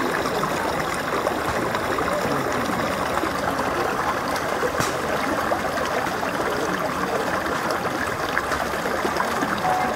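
Shallow stream running over rocks, a steady babble and splash of water.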